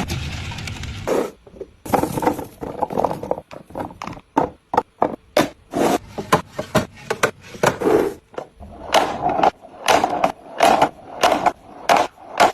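Groceries and containers being set down and slid into place while a refrigerator is restocked: a quick, irregular run of knocks, taps and short scrapes, with a brief pause about a second in.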